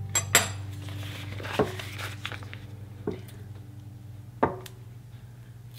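Paper butter wrapper crinkling as a stick of softened butter is peeled open, then a few light knocks of a table knife cutting pieces off the butter into a bowl of flour.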